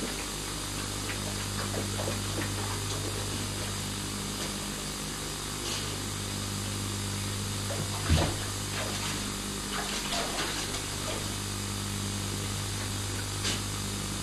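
Bath tap running into a bubble bath, a steady rush of water over a low hum, with small splashes and scrapes from a dog standing in the tub. A single sharp thump about eight seconds in is the loudest sound.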